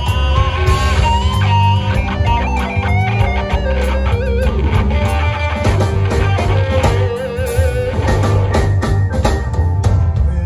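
Live electric blues band playing: a lead electric guitar with bent, wavering notes over bass guitar and drums.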